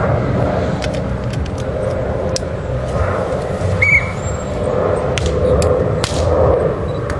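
Several sharp slaps of hands striking a beach volleyball during a rally, one of the clearest about six seconds in, over a steady low rumble. A short high chirp sounds about four seconds in.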